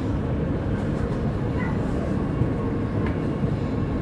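Oslo metro (T-bane) train running, heard from inside the carriage: a steady low rumble of wheels on the rails.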